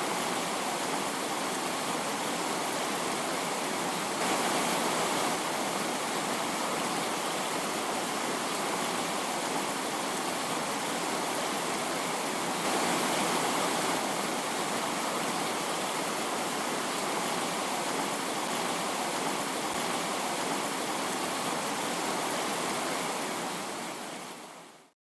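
A steady, even hiss of noise, a little louder for a moment about four seconds in and again about thirteen seconds in, fading out over the last two seconds.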